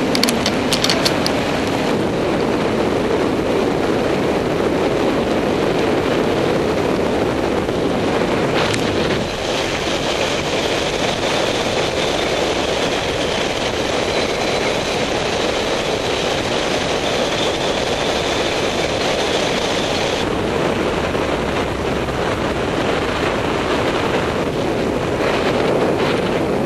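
Steady rush of wind over a paraglider's camera microphone in flight, with the tone shifting twice along the way.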